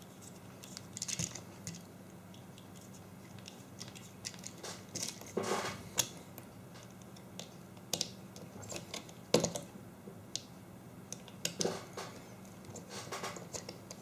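Scattered small clicks, taps and scrapes of hands working a mains plug's plastic housing and wires while taking it apart, the sharpest click about nine seconds in.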